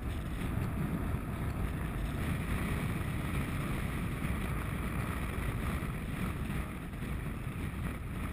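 Steady wind rumble on the microphone aboard a small open fishing boat at sea, with water washing along the hull.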